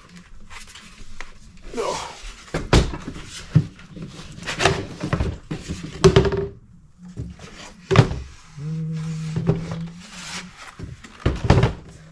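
Repeated knocks and clunks of a hard plastic tool being handled and set down on a work surface, with a brief low steady hum about nine seconds in.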